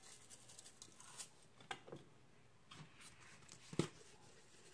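Seasoning shaken from a spice container onto raw beef: faint, scattered light taps and clicks, the sharpest about a second in, another just after, and one near the end.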